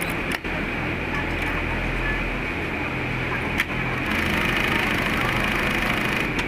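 Industrial bartack sewing machine, set up for zigzag stitching, running steadily as it stitches a label onto fabric. A few sharp clicks cut through the machine's drone, which gets slightly louder about four seconds in.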